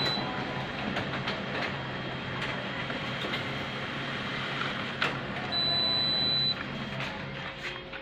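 Canon imageRUNNER iR2520-series copier running with a steady mechanical hum and a few clicks. A high steady beep sounds for about a second, about five and a half seconds in.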